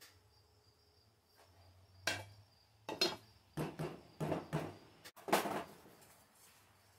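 Clatter of small paint-mixing gear being handled on a workbench: a run of knocks and taps as a small metal cup and a plastic mixing cup are set down and moved, the loudest a little after five seconds in.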